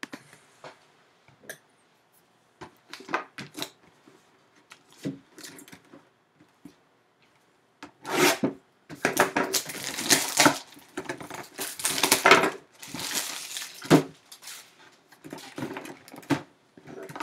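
A few light taps and clicks of handling. Then, about eight seconds in, some six seconds of loud crinkling and scraping as a knife slits and tears the plastic shrink wrap off a cardboard trading-card box, with rustling as the box is turned over near the end.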